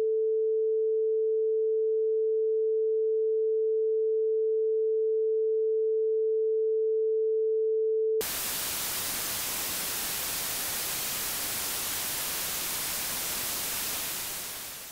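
A steady electronic sine tone held at one mid pitch, which cuts off abruptly about eight seconds in and is replaced by a steady hiss of white noise that tapers slightly near the end.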